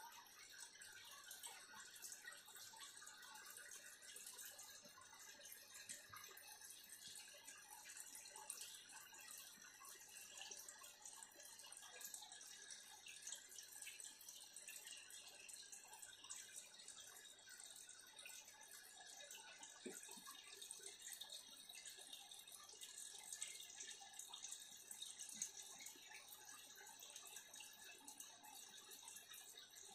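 Faint, steady trickling and dripping of water, as from an aquarium filter's outflow running into the tank.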